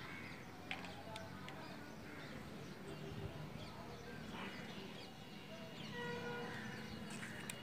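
Faint outdoor background with scattered distant bird chirps, and a light click or two of a plastic spoon stirring in a plastic bowl in the first second or two.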